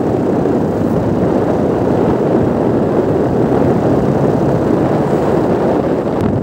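Steady rush of wind over the microphone of a motorcycle cruising at about 55 km/h, mixed with the bike's running and road noise.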